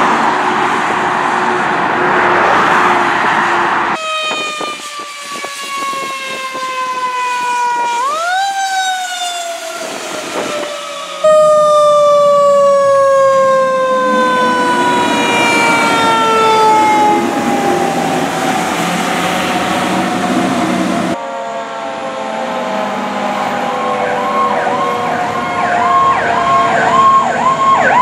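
Fire truck sirens wailing, with the pitch sliding slowly down and sweeping back up once, in several separate passes. Near the end, a fast electronic yelp of about two cycles a second sounds over a falling wail. At the start, road noise from passing vehicles comes before any siren.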